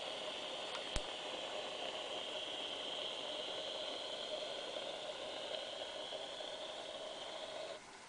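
The small built-in speaker of the U.S.S. Excelsior NX-2000 electronic toy starship plays a steady hissing hum sound effect, which cuts off suddenly just before the end. A single sharp click sounds about a second in.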